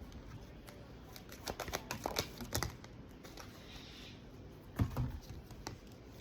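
Cards being handled on a table: a quick run of light taps and rustling clicks about one and a half to nearly three seconds in, then a couple of duller knocks near the five-second mark.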